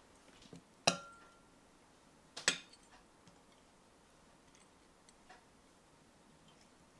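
A utensil clinks twice against a ceramic bowl as pieces of pork tenderloin are set into it: once about a second in, with a brief ring, and again near two and a half seconds. A few faint taps follow.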